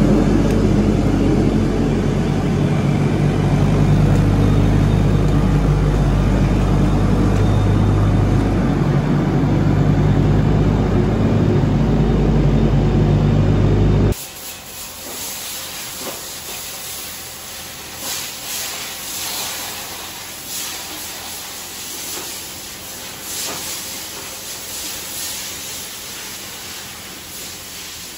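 Volvo wheel loader's diesel engine running loud and steady. About halfway through it cuts off suddenly, giving way to a quieter hiss of spraying water.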